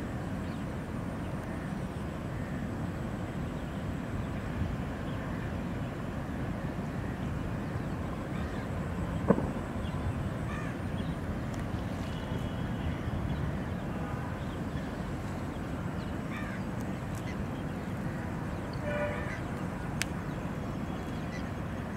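Steady low rumble of distant city traffic, with a single sharp knock about nine seconds in and a few faint short calls near the end.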